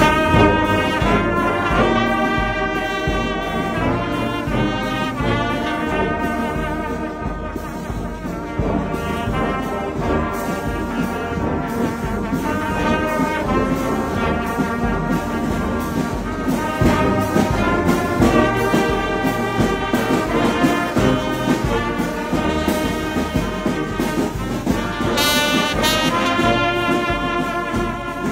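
Brass band playing a slow hymn-like piece: trumpets and cornets carrying the melody over tuba and lower brass, held notes changing every second or so.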